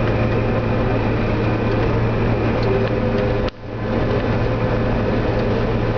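John Deere 9770 STS combine running with its threshing machinery and stripper header engaged, a steady low drone heard from inside the cab. The sound cuts out for a split second about three and a half seconds in, then comes back.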